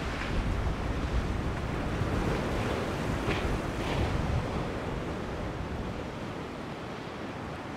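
Surf breaking in a rough inlet, with wind buffeting the microphone; the rushing noise is louder in the first half and eases toward the end.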